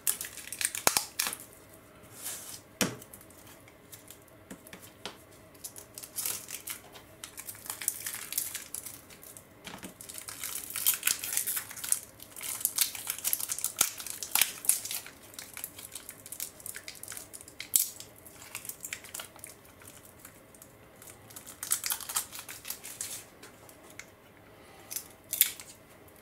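Small clear plastic bag rustling and crinkling as it is opened and handled, holding metal O gauge wagon wheelsets, with scattered light clicks of the wheels and small parts being picked up and set down.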